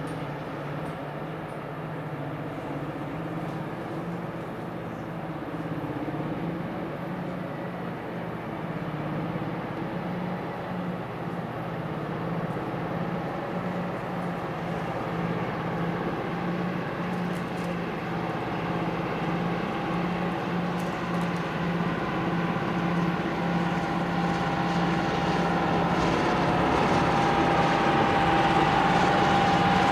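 Diesel locomotive engine running steadily, growing louder throughout as it draws nearer, with a high whine coming up over it in the last few seconds.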